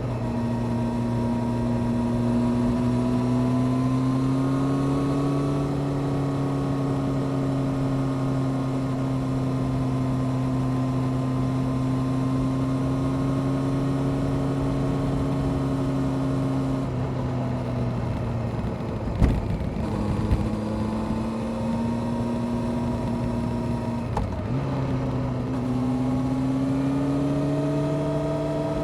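Honda CBR600F Sport's inline-four engine through a Delkevic exhaust, riding at a steady engine speed over wind noise. Around the middle the engine note drops, with a couple of sharp knocks, then climbs again near the end as the bike accelerates.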